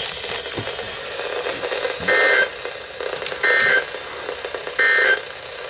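Emergency Alert System end-of-message signal on NOAA Weather Radio: three short, loud blasts of buzzy two-tone digital data, about a second and a half apart, over radio hiss. It marks the end of the warning just read.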